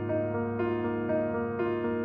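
Slow background piano music: a melody of single notes, about two a second, over a held low chord.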